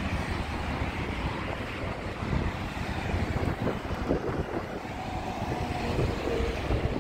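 Wind rushing and buffeting over the microphone while riding a bike, with the rolling rumble of the ride underneath.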